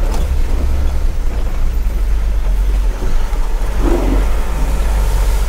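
Low, steady engine drone heard inside the cab of a loaded Ashok Leyland Dost light truck crawling along a muddy, potholed dirt track, with a brief higher sound about four seconds in.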